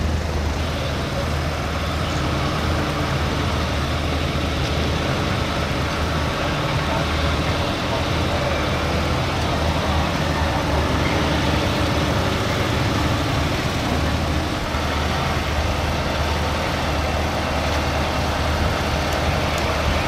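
Diesel engines of heavy MAN tractor units hauling oversize loads, a steady low engine rumble as the convoy approaches, with general road noise.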